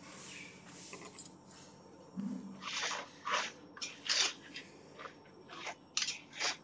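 A spoon stirring chilli-coated goat tripe and onions in an aluminium pressure cooker. From about two seconds in it scrapes against the pot in a run of short, irregular strokes, roughly two a second.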